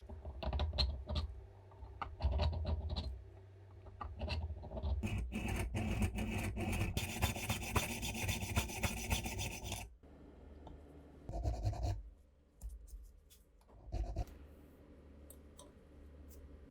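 Hand work on old pistol parts: scratching and rubbing with many small clicks, dense for about ten seconds, then sparser and quieter.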